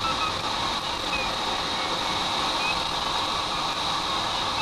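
Steady rushing airflow noise inside a glider's cockpit as it flies along a ridge, with faint short high tones now and then.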